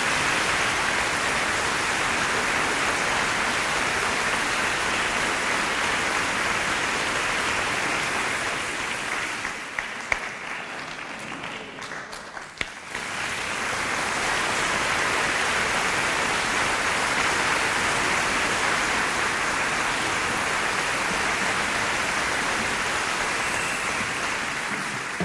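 Audience applauding steadily. The clapping thins out about ten seconds in, then swells back to full strength a few seconds later.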